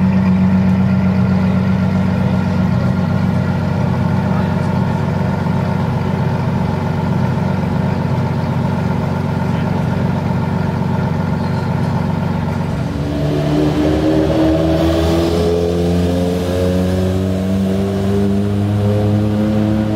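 Ferrari F12 Berlinetta's 6.3-litre V12 idling steadily, then, about two-thirds of the way through, pulling away slowly with its pitch rising gradually.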